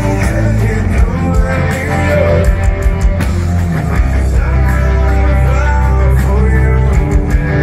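Live hard rock band playing loud through a festival PA, recorded from within the audience, with a heavy bass underneath.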